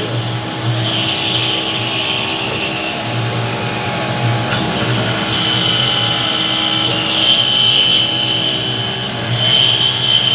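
Homemade CNC milling machine cutting with an end mill under flood coolant: the spindle runs steadily while the cutter chatters, with a high cutting tone that grows louder from about halfway through.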